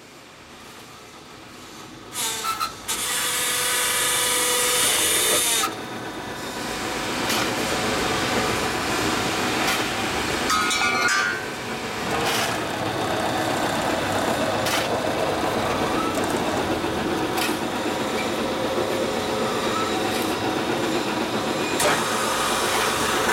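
QMJ4-30 mobile concrete block machine running: about two seconds in its vibrator starts and shakes hard for roughly three seconds, then its electric motors keep running steadily with a sharp click every two to three seconds.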